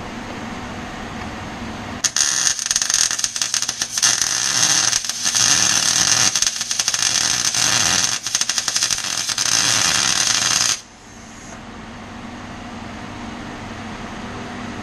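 Eastwood welder's arc crackling for about nine seconds as it welds a bracket tab onto a steel rear axle, with a couple of brief breaks, then stopping suddenly. The welder is turned up because it has been struggling to penetrate the axle. A steady hum runs before and after the weld.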